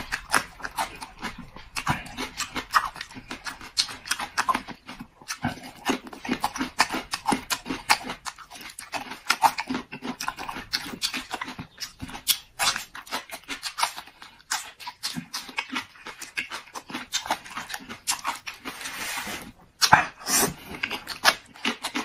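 Close-miked eating of braised eggplant and raw chili pepper: wet chewing and lip-smacking made of rapid, irregular clicky mouth noises, with a longer breathy slurp near the end.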